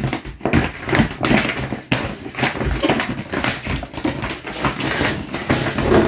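A rolled paper poster being unrolled by hand, rustling and crinkling in quick irregular bursts.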